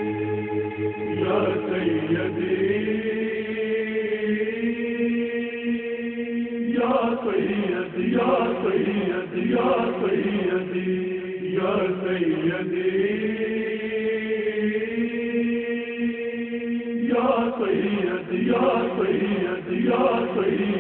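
Devotional manqabat chorus chanting without words: long held notes sung together, with livelier, more wavering melodic passages about seven seconds in and again near the end.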